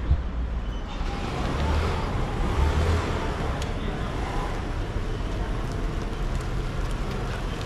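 City street ambience: traffic noise from vehicles, with faint voices of passers-by.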